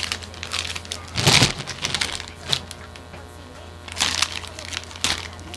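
Plastic bubble-wrap packaging being torn open by hand: several short crackling, crinkling bursts over a steady low hum.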